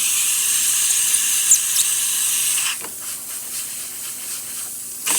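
Breville Oracle's steam wand venting steam with a steady hiss, a sign that the serviced steam boiler is pressurizing and steaming normally. A little past halfway the hiss drops away sharply, then comes back on just before the end.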